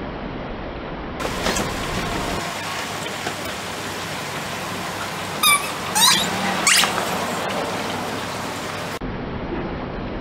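Rubber ducks squeaking as a car tyre rolls onto them and squashes them: three short squeaks about halfway through, over a steady hiss.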